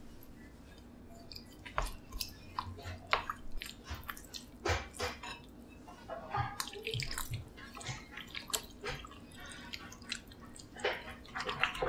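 Wooden spatula stirring thick sesame paste with water in a ceramic bowl: irregular wet squelches, drips and light clicks against the bowl, busier near the end.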